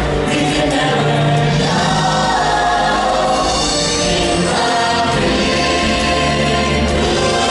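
Live musical-theatre number: several voices singing together over amplified accompaniment.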